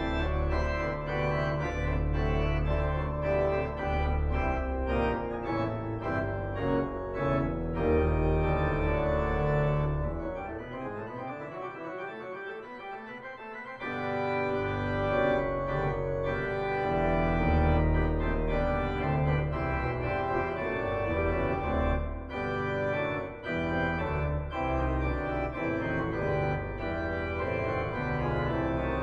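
Organ music: sustained chords over a deep pedal bass. The bass drops out for a quieter passage about ten seconds in and comes back a few seconds later.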